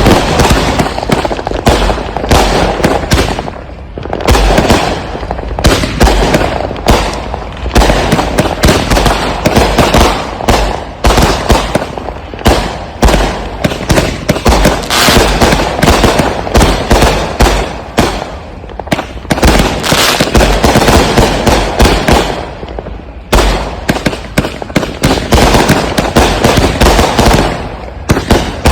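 Consumer firework cakes firing a rapid, near-continuous barrage of launches and aerial bangs and crackles, with brief lulls about four seconds in and again about 23 seconds in.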